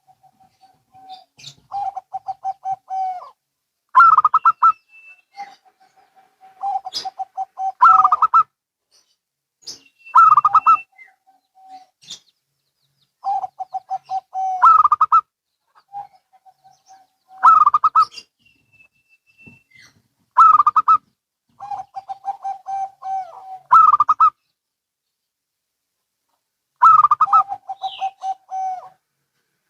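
Zebra doves (perkutut) cooing, two birds answering each other. Each phrase is a quick run of staccato coos, a lower trill and a louder, higher part, and the phrases repeat every few seconds.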